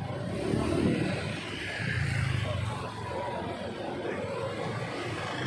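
Street traffic in a narrow lane: motor scooter and car engines running at low speed, with a low engine rumble that swells about two seconds in.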